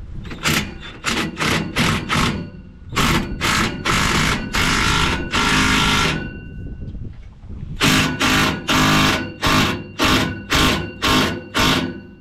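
A power tool fitted with a 14mm socket is tightening an exhaust hose clamp around the pipe join. It runs in short bursts about twice a second, with one longer continuous run of about two seconds midway.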